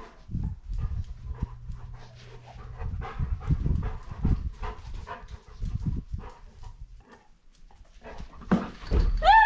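A golden retriever panting as it moves through the house, with irregular thumps and rustling from the camera strapped to its back.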